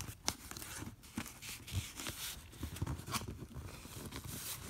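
Cardboard box flaps being worked open by hand: rustling and scraping of cardboard with scattered small clicks.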